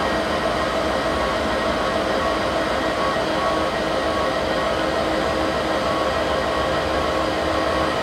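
Diesel freight locomotive running steadily, a constant engine drone with a few steady tones.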